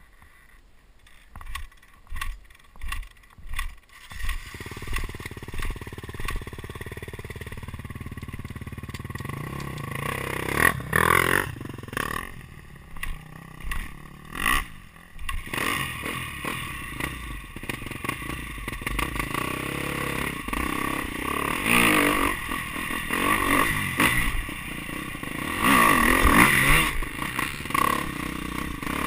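KTM dirt bike engine being ridden round a motocross track, revving up and down through the bumps and jumps, with clatter from the bike. A few short knocks come first, and the engine's note sets in about four seconds in.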